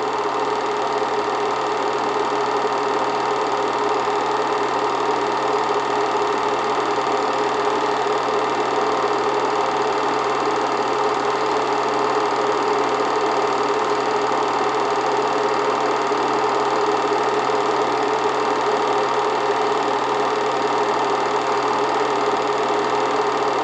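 8mm film projector running: a steady, even mechanical whir that does not change.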